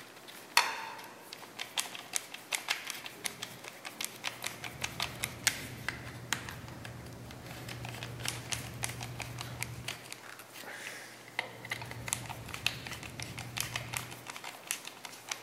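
Hand screwdriver tightening screws into a freshly made plastic part on a heavy-duty angle grinder: a run of small, irregular clicks and ticks as the driver turns and is regripped. A low steady hum comes and goes underneath.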